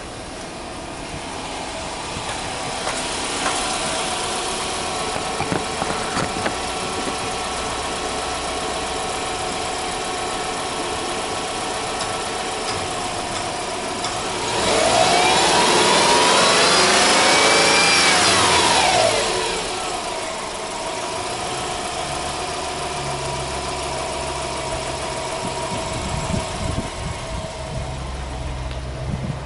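Subaru Impreza 1.5i-S's 1.5-litre flat-four (boxer) engine idling steadily, then revved once with no load about halfway through: the engine note climbs and falls back to idle over about five seconds.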